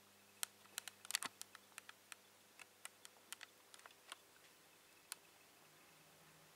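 Faint steady hum from the magnetic ballast of a running Philips HPL-N 1000 W mercury vapour lamp, with a quick irregular run of sharp light clicks over the first five seconds.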